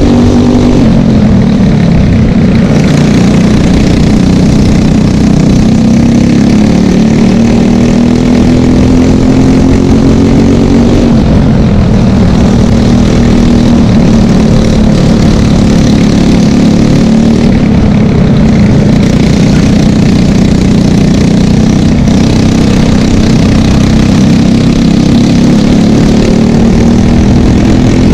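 Loud onboard sound of a cadet racing kart's Briggs & Stratton LO206 single-cylinder four-stroke engine at racing speed. Its pitch drops off under braking at the start, about twelve seconds in and again about eighteen seconds in, and climbs steadily as the kart accelerates out of each corner.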